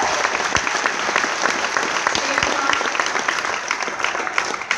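Audience applauding: dense, steady clapping from many hands at once.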